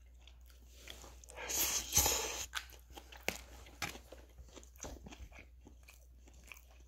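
Close-up eating sounds: a mouthful of noodles being taken and chewed, with a noisy stretch about two seconds in, then scattered short clicks and scrapes of a plastic fork in a takeout container.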